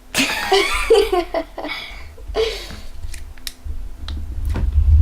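A girl's excited exclamation or giggle, then a few sharp sticky clicks and pops from clear slime being poked by hand, with low handling bumps against the microphone.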